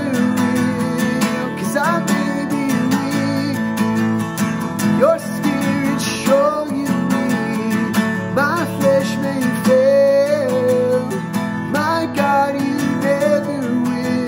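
A man singing a worship song while strumming a Takamine acoustic guitar.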